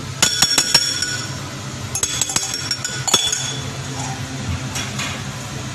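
Metal pestle clinking against a small clear glass mortar of crushed coriander seeds, in short groups of sharp, ringing strikes. A steady low hum runs underneath.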